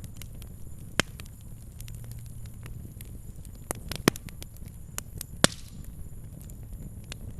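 Fire crackling: irregular sharp pops and snaps over a low steady rumble of the flames, with the loudest pops about a second in and again a little past five seconds.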